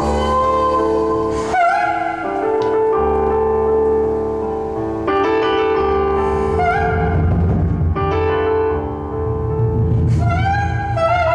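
Live improvised music: a synthesizer holds sustained chords that change every couple of seconds. A wavering, drawn-out voice line comes in over them a few times, and a deeper low layer fills in during the second half.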